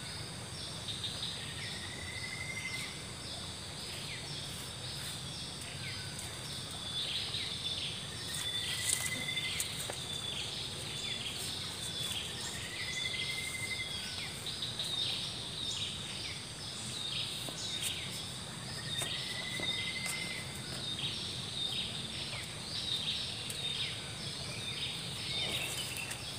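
Insects chirring in quick pulses, with a short whistled bird call recurring every few seconds.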